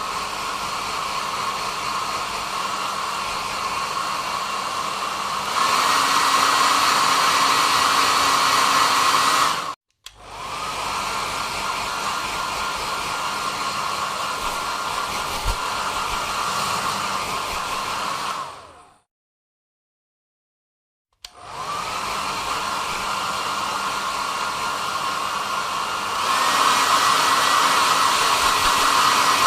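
Hand-held hair dryer blowing with a steady whir and a high whine, several times switched on and spinning up, then switched off. Twice it steps up from the low setting to a louder high setting with a higher whine. Once it winds down to about two seconds of silence before starting again.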